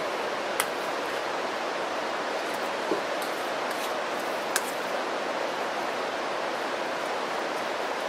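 A steady hiss, with three short clicks of a metal utensil against a steel canteen cup as the food is stirred, about half a second, three and four and a half seconds in.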